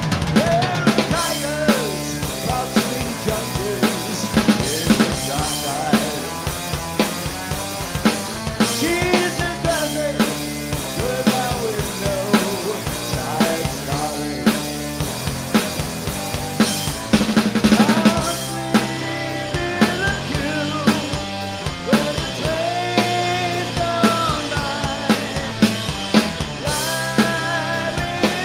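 Two-piece rock band playing live: a drum kit with hard snare and cymbal hits under an electric guitar riff with bending, sliding notes.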